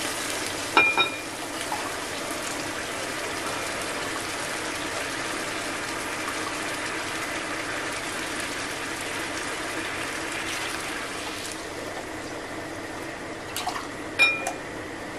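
Shrimp stock is ladled into a ceramic mug and poured into a hot frying pan of orzo and vegetables, and the pan answers with a steady bubbling hiss of liquid. A ladle clinks against ceramic about a second in and a few times near the end.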